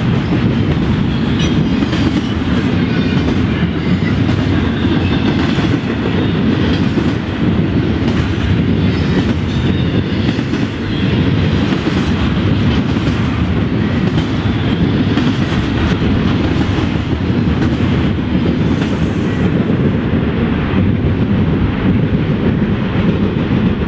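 Freight train's double-stack container well cars rolling past on steel rails: a steady heavy rumble of wheels on track, with repeated clicks as the wheels pass over rail joints.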